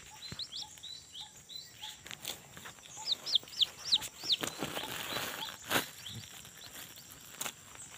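Footsteps and brush rustling through dense undergrowth, with two quick runs of short, high chirps that slide down in pitch in the first half.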